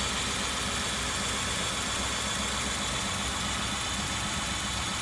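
2003 Kia Sorento engine idling steadily with a misfire on cylinder 1, caused by a leaking spark plug boot.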